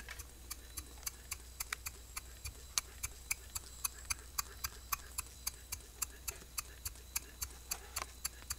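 H.E. Boucher S62 two-cylinder marine steam engine running quietly on under two pounds of pressure, with a light, even ticking of about four clicks a second.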